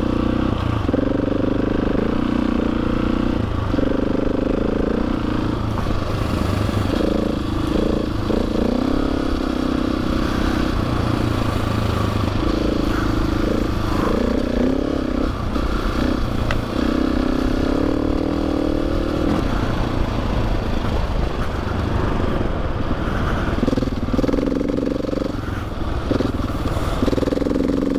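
Adventure motorcycle's engine heard on board while riding a dirt trail, its revs rising and falling and stepping with throttle and gear changes, over wind and the clatter of the ride.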